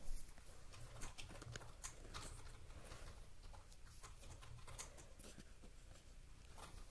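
Faint handling of Pokémon trading cards set down on a bed: scattered soft clicks and rustles, the sharpest right at the start, over a steady low hum.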